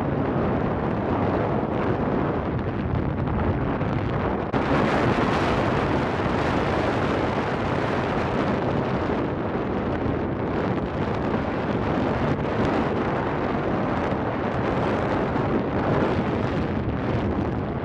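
Wind buffeting the microphone of a camera on a moving motorcycle, a steady rush over the low hum of the bike's engine running. About four and a half seconds in the rush turns louder and hissier.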